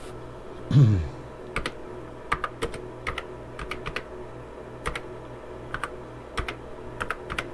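Keys being typed on the TRS-80 Model II's keyboard: irregular sharp key clicks, sometimes in quick runs, over a steady low hum. About a second in there is a short, loud, low sound that falls in pitch.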